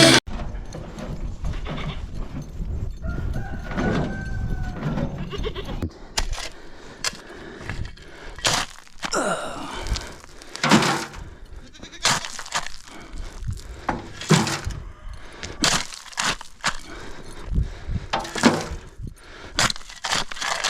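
A goat bleating, one wavering call about three to five seconds in, among many short sharp cracks and knocks.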